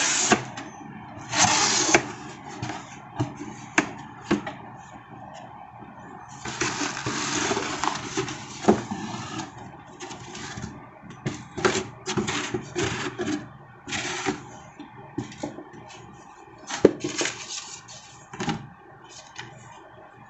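Cardboard shipping box handled by hand: flaps pulled open and folded back, with irregular rustling, scraping and sharp knocks, including a longer stretch of rustling near the middle. A paper receipt is rustled as it is lifted out near the end.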